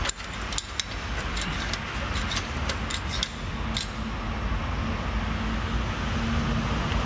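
Screwdriver clicking against the teeth of a Mercedes-AMG G63's parking-brake adjuster wheel as it is turned to retract the drum parking-brake shoes inside the brake disc, a string of irregular clicks that stops about four seconds in. A steady low hum runs underneath.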